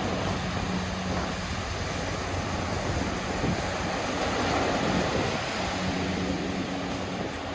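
Wind and surf noise with a ship's horn sounding a low, steady hoot. The hoot fades out about a second in and comes back faintly near the end.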